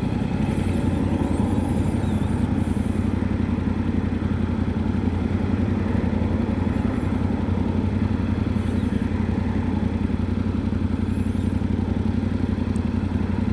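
Yamaha Ténéré 700's 689 cc parallel-twin engine running steadily at an even, unchanging speed.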